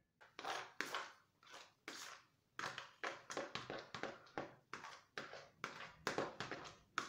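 Hands kneading and squeezing a wet food mixture in a glass mixing bowl: short squishing strokes about twice a second.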